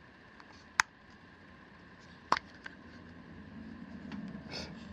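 Two sharp plastic clicks about a second and a half apart, then a fainter one, as the sticky suction mount's locking lever is worked. A low hum builds near the end.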